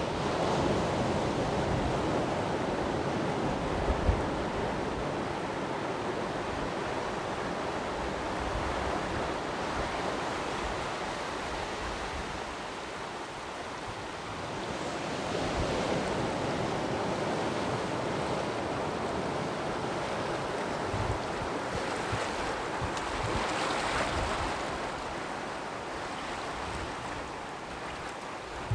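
Sea surf washing onto the shore in slow swells: louder near the start, again about halfway through and shortly before the end. Wind buffets the microphone with short low rumbles.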